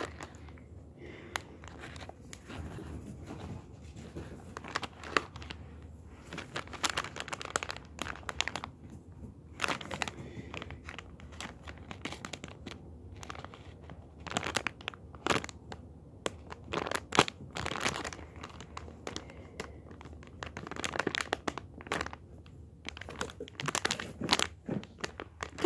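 Plastic packaging bags of squishy toys crinkling and crackling as they are handled, with sharp crackles coming and going at irregular moments.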